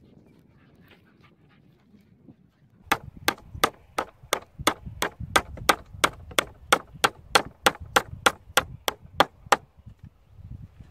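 Hammer striking a wooden plank frame: about twenty sharp, evenly paced blows, roughly three a second, starting about three seconds in and stopping shortly before the end.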